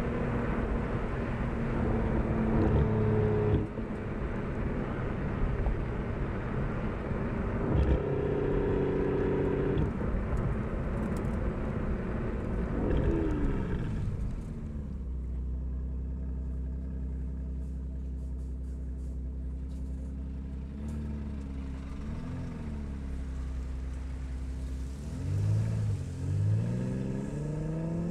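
Aston Martin DBS Superleggera's twin-turbo V12 through a Quicksilver Tian sport exhaust, heard from the rear of the car while driving. It runs at a steady cruise with road noise, drops in pitch about halfway through as the car slows, and holds a low, steady note for several seconds. Near the end the pitch rises as it accelerates, with a dip between two rises like a gear change.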